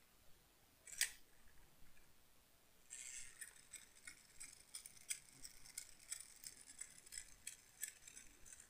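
A sharp plastic click about a second in, then faint quick clicking and rattling of small plastic parts as a handheld GoPro gimbal is handled.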